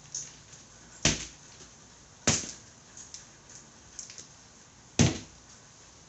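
Motorcycle wheel with a freshly mounted tire being bounced on cardboard over a concrete floor: three dull thumps, about a second in, a little past two seconds and about a second before the end, with a few light knocks between. The bouncing settles the tire's beads on the rim before it is inflated.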